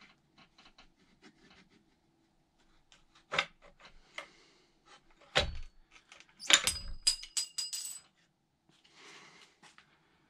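Knocks, clicks and rattles of an e-scooter's rear wheel being worked out of its frame and mudguard by hand, with a run of sharp metallic clinks that ring briefly about six to eight seconds in.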